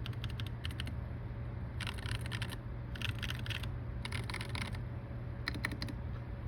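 Custom RK61 mechanical keyboard with factory-lubed Jkeys Mint Choco Chip switches being typed on. There is a short run of keystroke clicks at the start, then three dense, rapid flurries of clicks in the middle, each under a second, and a few more clicks near the end, over a steady low hum.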